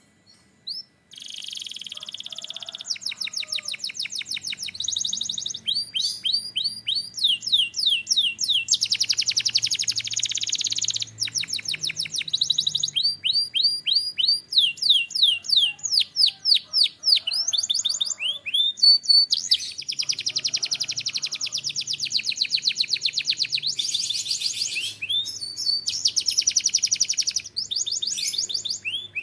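Canary singing a long song of rapid trills and repeated rising and falling whistled sweeps, changing phrase every second or two. It starts about a second in.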